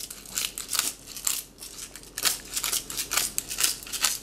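Pepper mill grinding peppercorns, twisted by hand: quick, dry crunching clicks coming in irregular bursts.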